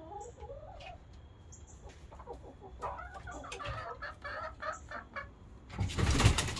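Chickens settling on the roost for the night, giving repeated short clucks and murmuring calls. A brief loud rustling burst comes near the end.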